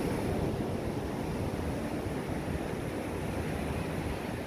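Surf washing onto the beach mixed with wind buffeting the microphone: a steady rushing noise, heaviest in the low end.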